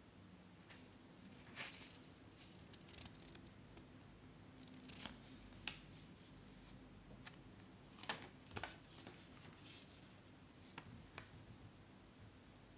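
Faint, scattered clicks and rustles of packaging being handled during an unboxing, with a few louder clicks among them.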